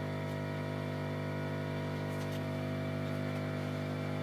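Steady hum of running workbench electronics, with a stack of evenly spaced overtones, and a couple of faint clicks about two seconds in.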